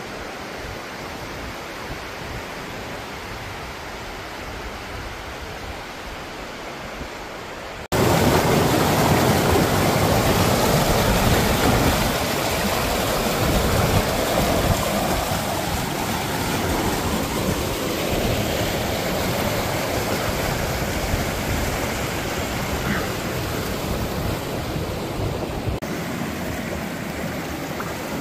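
Rushing river water: a fainter steady rush, then about eight seconds in it jumps suddenly to the loud rush of whitewater rapids close by, easing slightly after a few seconds.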